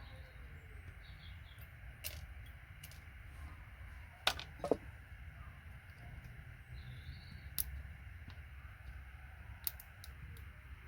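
Scattered sharp clicks and taps from stripping gold-plated pins off computer cable connectors, with a close pair of louder clicks about halfway through, over a low steady hum.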